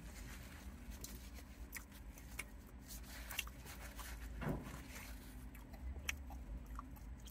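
Quiet car-cabin room tone with a low rumble, faint scattered clicks and rustles of someone chewing and handling a paper napkin, and a brief low hum about four and a half seconds in.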